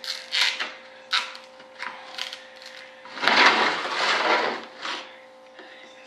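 Clay parting plane being scraped and rubbed off the edges of a mould piece by hand. A string of short scrapes is followed, about three seconds in, by a louder continuous stretch of scraping that lasts nearly two seconds.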